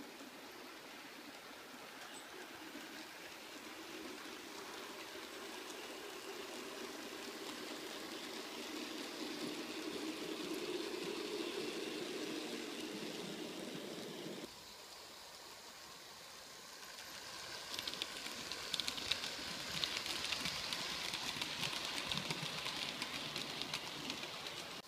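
H0-scale model train running on layout track: a motor hum that grows louder as the train passes close, stopping abruptly about 14 seconds in. Then a fine, rapid rattle of small wheels clicking over rail joints and points that builds up and carries on to the end.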